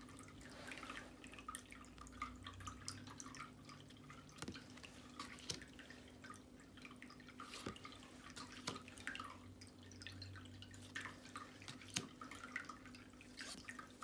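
Tarot cards being flipped through by hand: scattered light clicks and soft rustles as the cards are moved and set down, over a faint steady hum.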